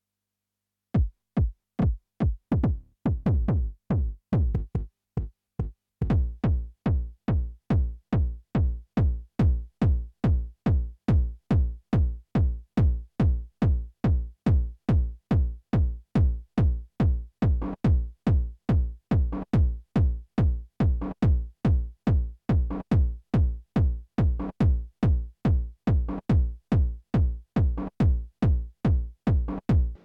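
909 techno kick drum: a few uneven hits, then from about six seconds in a steady four-on-the-floor beat of about two and a half deep thuds a second.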